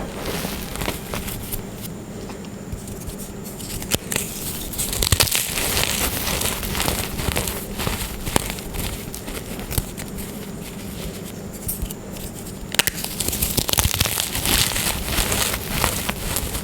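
Blocks of glittery gym chalk being crushed and crumbled, a dense crunching crackle full of small sharp cracks that grows busier about four seconds in and again near the end.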